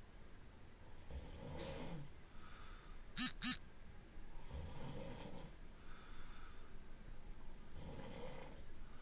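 A man snoring in his sleep, one snore roughly every three seconds. A little over three seconds in come two short squeaky sounds in quick succession, the loudest moment.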